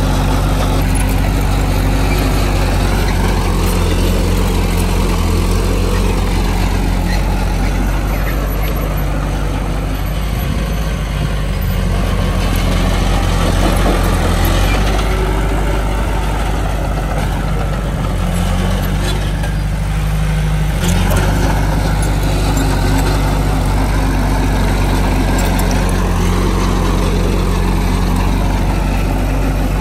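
Heavy diesel engine of earthmoving machinery running steadily, its note rising and falling slowly at times as it works.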